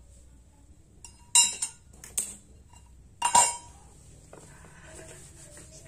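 Metal lid clinking onto a tin-can spirit (alcohol) stove burner to snuff out its flame: three sharp metallic clinks, the middle one lighter.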